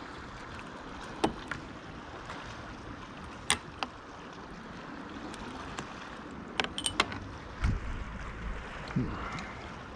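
Water lapping and washing against a kayak hull, with scattered sharp clicks and knocks from gear being handled, and two low thumps near the end.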